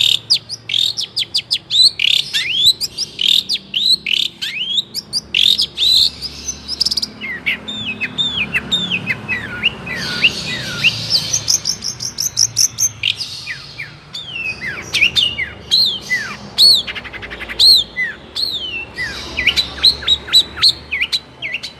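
Long-tailed shrike (cendet) singing continuously: a rapid, varied run of sharp whistled notes, many sliding down in pitch, mixed with quick chattering trills.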